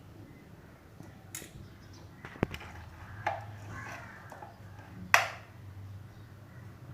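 A few sharp clicks and taps from handling wires and small electronic parts on a bench, the loudest about five seconds in, over a faint steady low hum.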